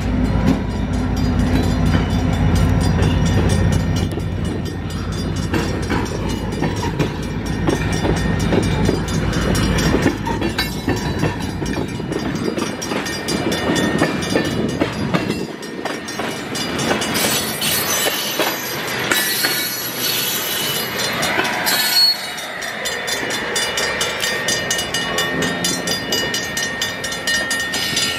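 Diesel freight train passing: the deep rumble of the locomotives fades over the first ten seconds or so, leaving the freight cars rolling by with wheel clatter. A thin, steady high tone from the wheels comes in near the end.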